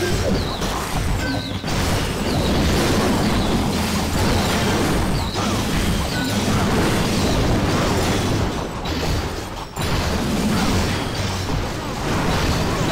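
Loud music with a heavy bass.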